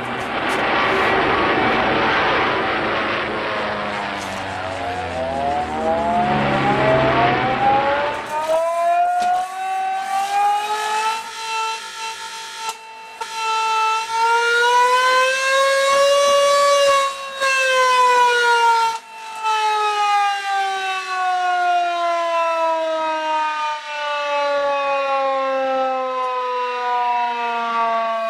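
Hand-cranked mechanical air-raid siren: for the first eight seconds or so a loud rushing noise with the wail climbing out of it, then a clear wail that rises to its highest pitch about halfway through and falls slowly as the siren winds down.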